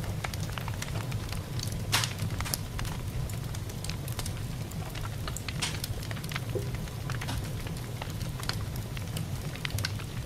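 Wood campfire crackling with irregular sharp pops, one louder pop about two seconds in.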